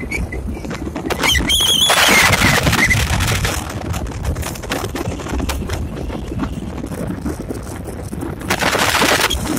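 Car driving along a road, with steady engine and road rumble. There are two louder rushes of noise, one about two seconds in and one near the end, and a brief warbling high squeal about a second and a half in.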